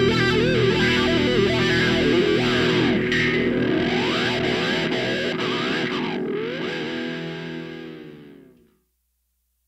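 Rock background music led by distorted electric guitar with effects, fading out about eight and a half seconds in, then silence.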